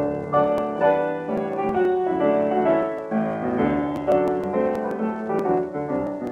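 Instrumental break of an old 78 rpm record with piano-like accompaniment and no voice, the tone thin and dull up top, sprinkled with sharp record-surface clicks.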